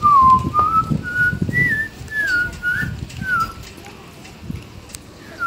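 A whistled tune: a string of clear single notes, each about a third to half a second long, several of them sliding down in pitch.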